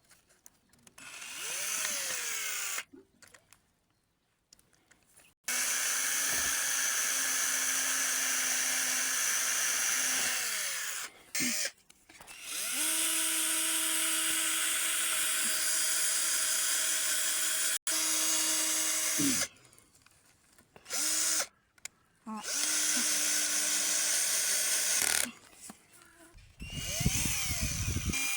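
A drill-driver is driving long self-tapping screws into wooden boards. The motor runs in several bursts of a few seconds each, with short pauses between them. At the end of most runs the pitch winds down as the trigger is let go.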